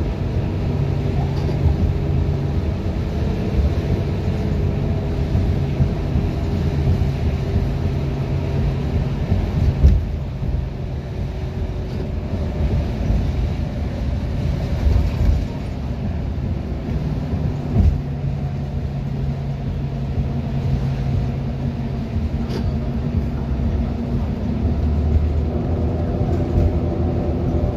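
Inside a 2011 Gillig Advantage transit bus under way: steady engine and drivetrain drone with road rumble. The engine note drops away about ten seconds in and comes back around seventeen seconds, with a couple of brief thumps from the road.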